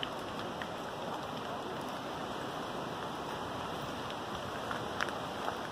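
Rain falling on woodland foliage: a steady hiss with a few scattered light ticks.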